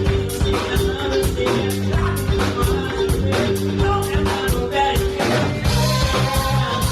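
Funk band playing live with a steady drum beat, bass and guitars, and singing.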